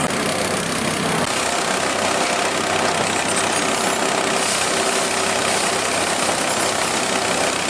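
A small engine running steadily under load.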